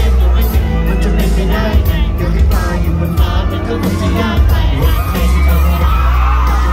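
Male singer singing a pop song live into a microphone over a loud amplified backing track with heavy bass, while fans scream and shout over the music.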